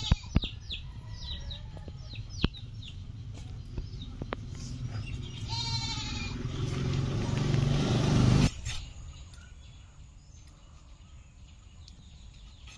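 Two quavering animal calls, one at the very start and one about six seconds in, with short chirps between them. A rising rush of noise follows and cuts off abruptly about eight and a half seconds in, leaving quieter outdoor sound.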